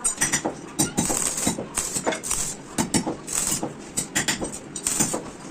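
Irregular knocks and clinks, several a second, from metal parts being handled or struck.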